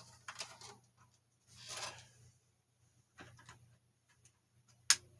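Scattered light knocks and rustles of a box fan being handled, then one sharp click near the end as its switch is turned on.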